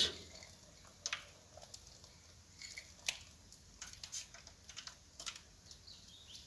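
Crushed peanuts sprinkled by hand over cake batter from a small bowl: faint, scattered light ticks and patters as the pieces and fingers touch the bowl and the batter.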